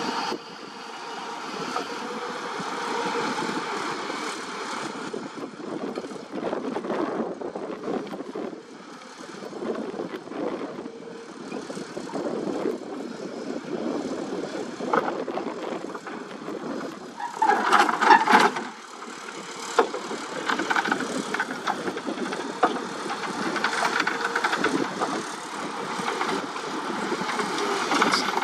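Long-boom excavator running, its engine and hydraulics working as it swings the vibratory hammer attachment. About 17 seconds in comes a loud, higher-pitched burst lasting roughly a second.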